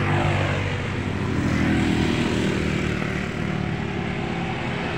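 A car engine running steadily, heard close to the open engine bay.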